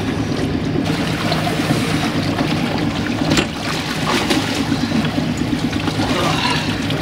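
Water splashing and rushing around a swimmer towed on a line behind a moving sailing yacht, over a steady low hum from the yacht's engine. There is a sharper splash or knock about three and a half seconds in, as he reaches the stern.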